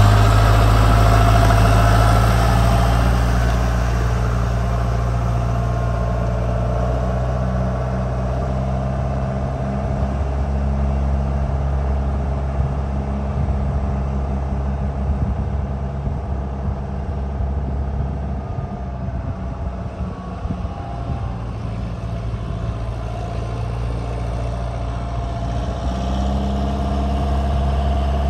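2007 John Deere 6520 tractor's diesel engine running steadily as it drives away, loud at first and fading with distance. About two seconds from the end it grows louder again as the tractor comes back.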